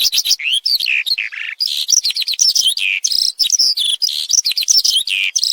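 Eurasian skylark singing: a long, unbroken stream of quick chirps, slurred warbles and short trills with no pauses.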